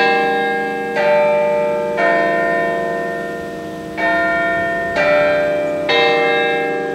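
Church tower bells of different pitches ringing: six strokes about a second apart, with a one-beat pause after the third. Each stroke rings on and fades slowly under the next.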